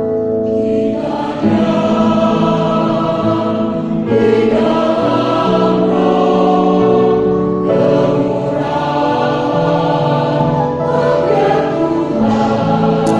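Church choir singing a hymn in harmony, the voices coming in strongly about a second in after a held chord, phrase after phrase.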